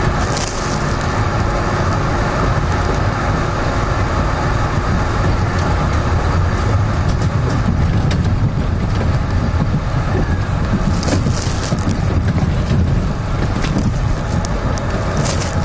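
Toronto subway train running along the track, heard from inside the front car: a steady low rumble of wheels on rails, with short high-pitched hissing screeches about 11 and 15 seconds in.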